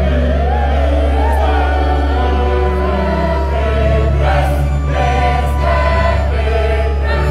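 Church choir singing, with sustained organ accompaniment underneath.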